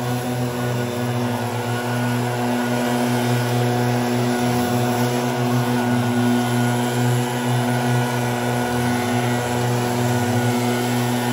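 Gas backpack leaf blower's two-stroke engine running steadily at high throttle, with air rushing from the blower tube; the engine pitch sags briefly twice, about four and nine seconds in.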